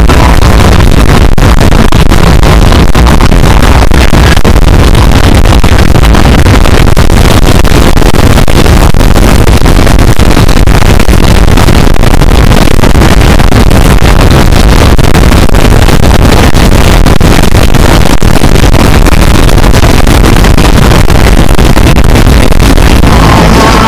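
Fireworks show audio from loudspeakers close by, so loud in the bass that it overloads the recorder: a steady, distorted roar in which no music or single bursts stand out.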